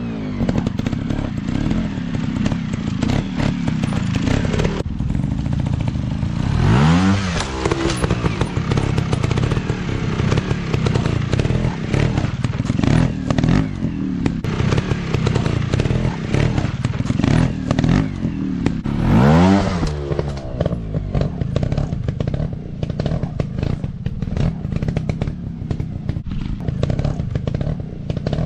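Dirt bike engines running on an off-road trail, revving up and dropping back sharply about a quarter of the way in and again about two-thirds through, with clattering and knocks throughout.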